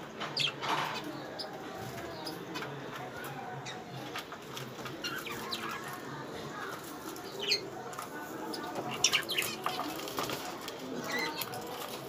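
Small cage birds chirping in short scattered calls, with bursts of wing flapping, loudest a little past the middle.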